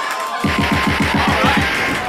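Electronic music played as a drop over the club's sound system: a fast roll of deep bass-drum hits, about eight a second, starting about half a second in, each hit falling in pitch, over a steady high tone.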